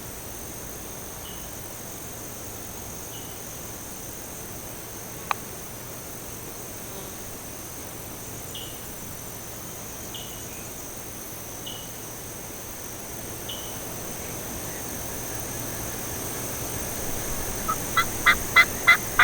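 Turkey yelping: a series of short calls about three a second, growing louder over the last two seconds, over a faint background of small chirps, with one sharp click about five seconds in.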